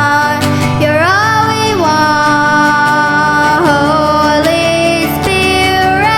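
Live worship music: a female voice singing long, wordless held notes that slide between pitches, over a steady instrumental backing.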